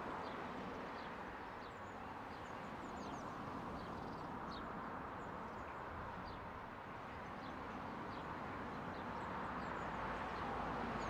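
Small birds chirping over and over, above the faint, steady low rumble of an approaching diesel locomotive that grows a little louder near the end.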